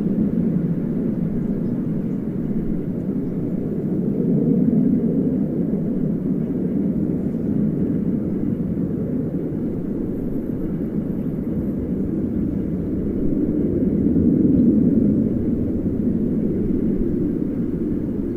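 Jet aircraft passing high overhead, a steady distant rumble that swells twice, about a quarter of the way in and again about three quarters of the way in.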